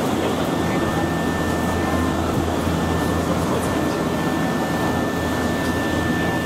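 Steady interior running noise of a Nankai electric commuter train in motion: a low hum with a thin, steady high whine.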